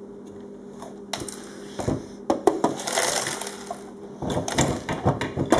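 Loose Lego pieces clattering and rattling out of a Lego truck's body onto a hardwood floor as it is tipped to dump. Scattered clicks, then a dense rattle about two seconds in, then more clicks near the end.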